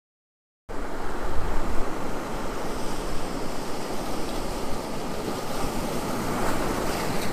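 A steady rushing noise with a fluctuating low rumble, cutting in suddenly under a second in after dead silence.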